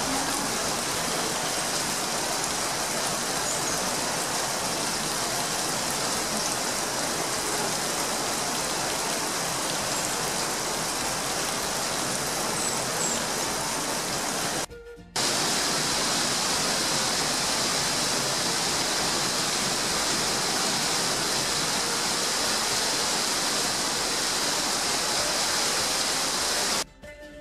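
Steady hiss of heavy rain falling on rainforest foliage. It drops out for a moment about halfway through and stops shortly before the end.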